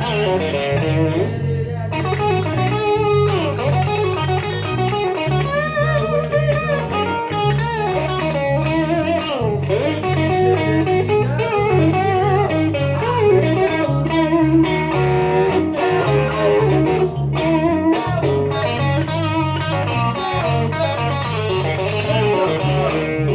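Live blues-rock instrumental on electric guitar and electric bass. The guitar plays a lead line whose notes often slide and bend in pitch, over a steady, repeating bass line.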